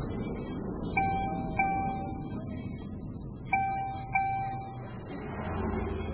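An electronic chime dinging in pairs, two dings about half a second apart, heard twice. Under it is the low, steady rumble of a car slowing to a stop.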